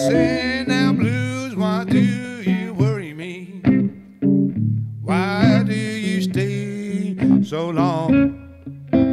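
Electric guitar played in a blues style, with a man singing blues phrases over it; the sung lines bend and waver in pitch, with short pauses between them.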